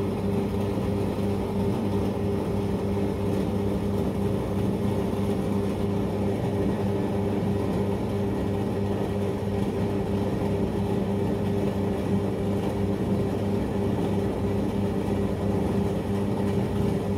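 Water pump running with a steady hum, just started and pushing water through the pipe.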